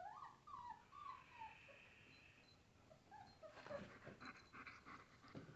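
Puppies whimpering faintly in short high squeaks that rise and fall in pitch, with some rustling in the second half.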